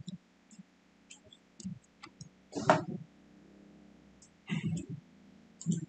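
Computer keyboard keys and mouse buttons clicking: scattered short taps, the loudest about two and a half seconds in.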